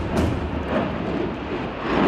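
Jet noise from an F-35 fighter flying by: a loud, steady rush with a deep rumble underneath.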